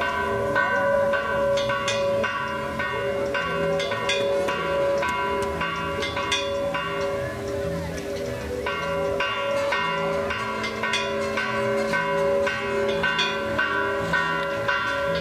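Church bells ringing a fast festive peal: several bells struck over and over in a repeating rhythm, with a short lull about eight seconds in.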